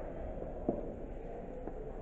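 High-heeled shoes walking on a hard floor: two sharp heel clicks about a second apart over a low steady hum.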